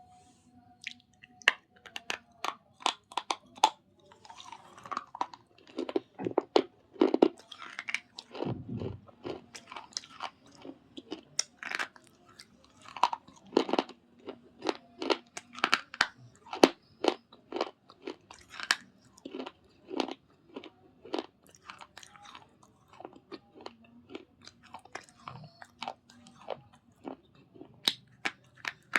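Slate pencils and baked-clay pebble pot pieces being bitten and chewed close to the microphone: a steady run of sharp, dry crunches, one to three a second, starting about a second in.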